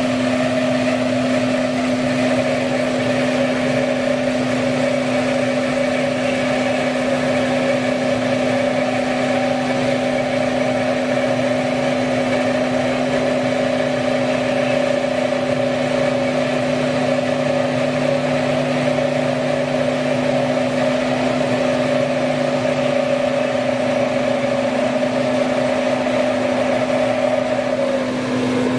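Kotec Newrun 10DX H-beam drilling line running: a steady machine hum with a higher whine that drops in pitch near the end.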